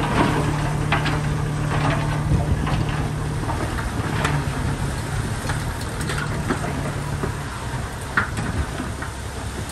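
Mitsubishi BD2G bulldozer's diesel engine running steadily while at work, with scattered clanks and knocks; the steady engine note drops away about seven and a half seconds in.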